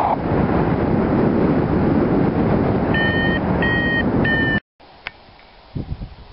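Wind rushing over the microphone of a paraglider in flight, with a variometer beeping three times near the end, its steady short tones the signal that the glider is climbing in lift. The rushing cuts off abruptly after the third beep, leaving much quieter faint background sound.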